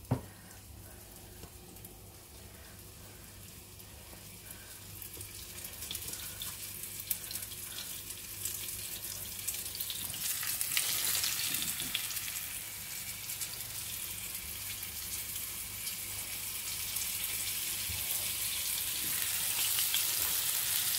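Flour-dredged salmon strips frying in hot sunflower oil, sizzling and crackling. The sizzle is faint at first and grows louder from about six seconds in as the pieces heat up in the pan.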